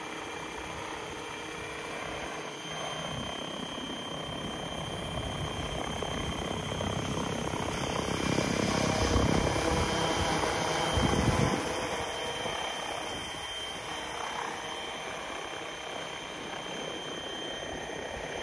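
Protos 770X Evo electric RC helicopter running at steady headspeed: a steady high motor and gear whine over the whoosh of the rotor blades, louder through the middle.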